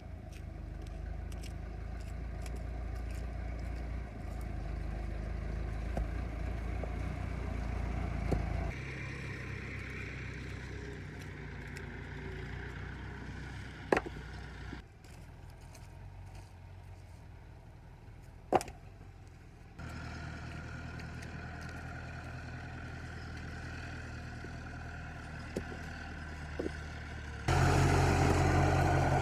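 Tractor engine running steadily, its level jumping suddenly up or down several times, loudest near the end. Two sharp knocks sound over it, about 14 and 18.5 seconds in.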